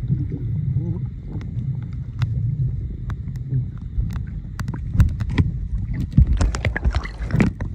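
Underwater sound through a submerged camera: a low, muffled rumble of moving water with scattered clicks and crackles, thickening into a dense crackle near the end as a snorkeler swims close by.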